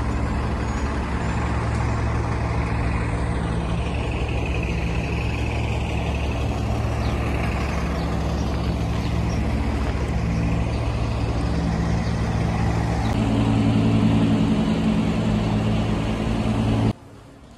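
Heavy road vehicle's engine running close by: a loud, steady low drone that swells a little near the end and then cuts off abruptly.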